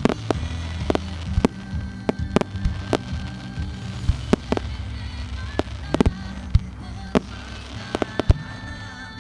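Fireworks shells bursting in an irregular series of sharp bangs, one or two a second, with a few louder reports about six and eight seconds in. Music plays steadily underneath.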